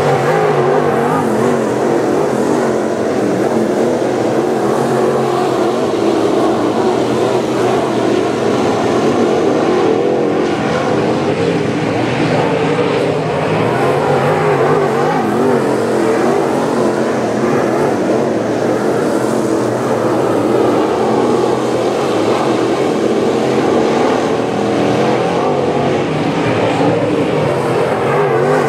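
A field of dirt late model race cars racing on a dirt oval, their V8 engines making a dense, steady wall of noise. Overlapping engine pitches rise and fall as cars power off the corners and pass.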